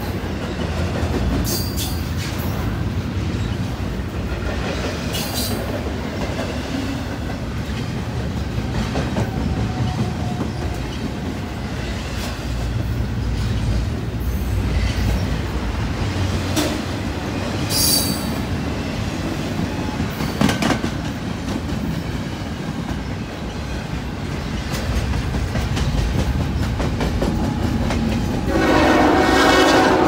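Double-stack intermodal freight train rolling past close by: a steady rumble of wheels on rail, with a few sharp clicks and squeaks. Near the end, an approaching CN freight locomotive sounds its multi-chime air horn, a steady chord.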